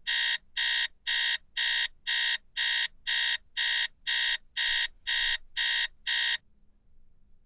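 Wake-up alarm beeping in short, harsh pulses about twice a second, then cutting off suddenly about six seconds in.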